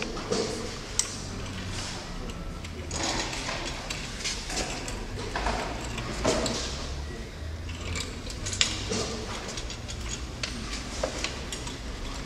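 Castor wheels of a steel rear paddock stand rolling over a concrete floor as a motorcycle is moved about on it, in several short pushes, with scattered clicks and knocks and shoe scuffs.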